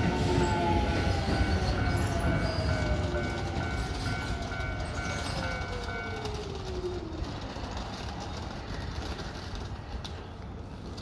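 Electric commuter train on the Keio Line running past and fading, its motor whine falling steadily in pitch as it slows. The level crossing's warning bell rings in a fast repeating ding and stops about six seconds in.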